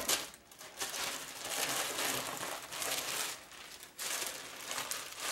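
Clear plastic bag crinkling and rustling as it is pulled off a slotted metal smoker part, with a short lull about four seconds in.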